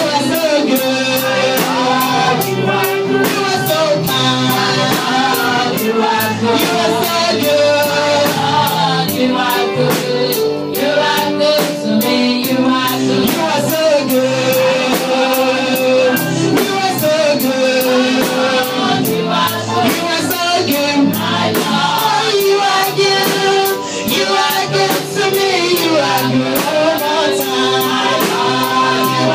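Gospel praise music: a choir singing over instruments, with a steady beat of about two strokes a second.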